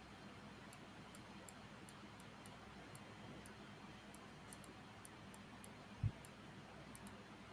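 Faint, irregular high-pitched ticks over quiet room tone, with a single low thump about six seconds in.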